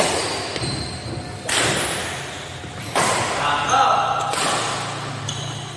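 Badminton rally: racket strikes on a shuttlecock, three sharp hits about a second and a half apart, each echoing in a large hall, with voices in the background.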